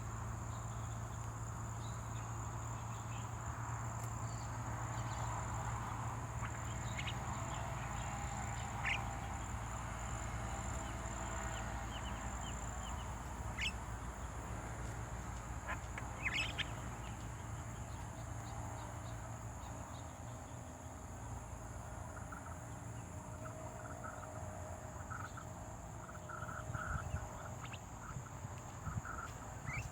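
Outdoor field ambience: insects trilling steadily at a high pitch, with scattered short bird chirps and a faint repeated call near the end.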